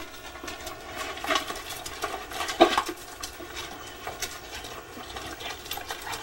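Two dogs jostling over a water bowl: faint scuffling and small clicks over a steady hiss, with one brief sharper sound about two and a half seconds in.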